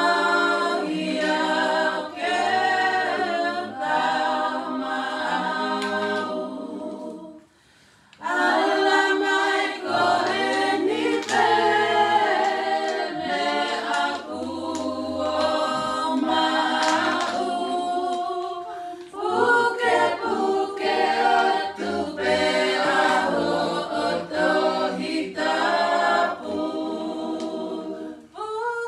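A cappella choir singing, with short breaks about seven seconds in and again near nineteen seconds.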